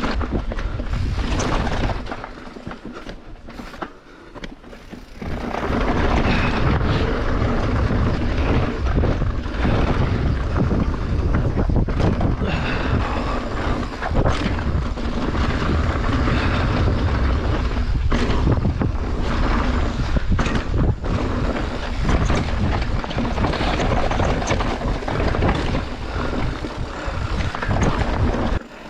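Wind buffeting the action camera's microphone, mixed with tyre roar and rattling as a full-suspension mountain bike descends a dirt trail at speed. It eases off for a few seconds near the start, then runs loud with scattered sharp knocks.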